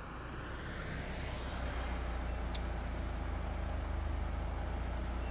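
A small hatchback car driving up across grass. Its engine and tyres grow louder over the first couple of seconds, then hold steady as it draws up.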